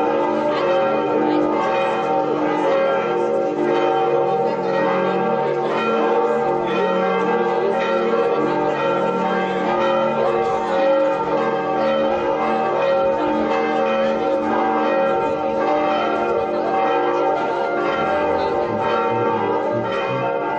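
Several church bells ringing together in a continuous peal, their strokes overlapping into one sustained ringing.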